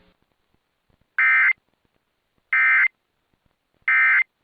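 Emergency Alert System end-of-message code from a NOAA Weather Radio: three short, identical bursts of shrill digital data screech, about a second and a half apart, signalling the end of the alert.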